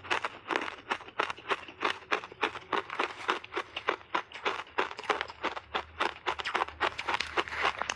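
Mouthful of crunchy coloured shaved ice being chewed, a rapid, even run of crisp crunches about four a second.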